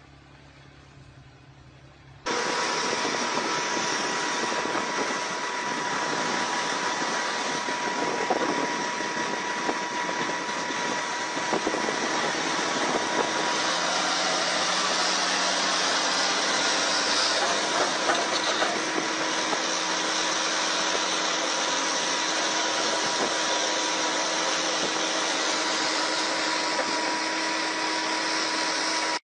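Articulated dump truck's diesel engine running hard, heard as a loud steady rushing noise with a constant whine; it starts suddenly about two seconds in, after a faint hum.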